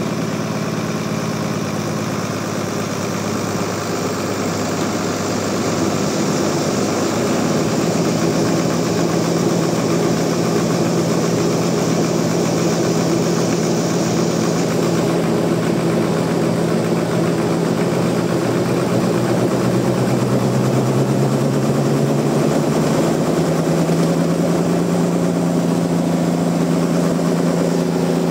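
Sawmill machinery running steadily with an engine drone. A high hiss over it fades out about halfway, and the engine's pitch shifts upward in the last third.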